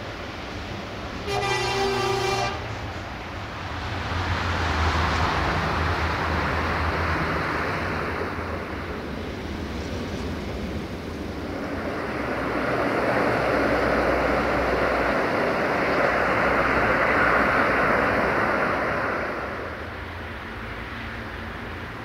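A single blast of about a second on a diesel locomotive's horn, about a second in. Then a train rolls past: a low engine drone under the rush of wheels on rails, swelling twice and easing off near the end.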